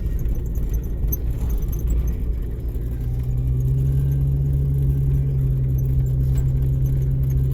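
Jeep engine running under load, heard from inside the cabin over a low rumble. Its note rises about three seconds in and then holds steady.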